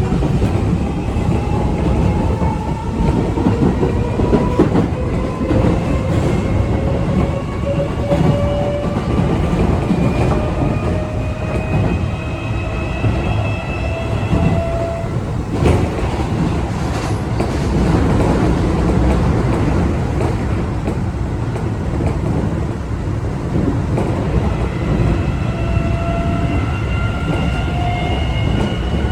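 Keio 8000 series electric train's Toshiba permanent-magnet-motor VVVF inverter, heard from inside the car: high-pitched whine tones climb in pitch over the first half as the train gathers speed, drop out about halfway, and return rising near the end. Under them run the steady rumble and clicking of the wheels on the track. This unit's motor whine is described as unusually loud and high-pitched, like the Seibu 40050 series.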